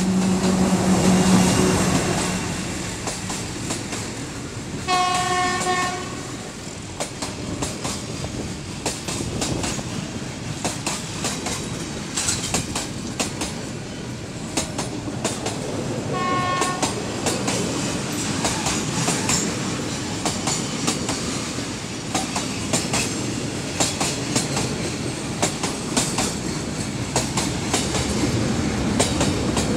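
D18E diesel-electric locomotive's engine running loudly as it passes in the first two seconds, then a long freight train's wagons rolling by with steady clattering of wheels over rail joints. A horn sounds twice, briefly, about five and sixteen seconds in.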